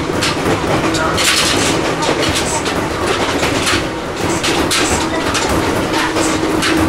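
Ohmi Railway 800 series electric train running at speed, heard from inside the car: a steady running hum with a held tone, and frequent irregular clacks and knocks from the wheels on the rails.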